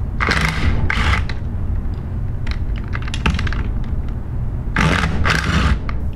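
Cordless 3/8-inch impact gun hammering in short bursts as it loosens the bolts of a metal diaphragm pump's discharge manifold: once just after the start, briefly about a second in, and again near the end. Light metallic clicks of the socket and bolts come in between.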